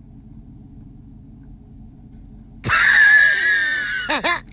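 A person's high-pitched shriek bursts in about two and a half seconds in, held for over a second with a slightly falling pitch, followed by a couple of spoken words. Before it there is only a faint background hum.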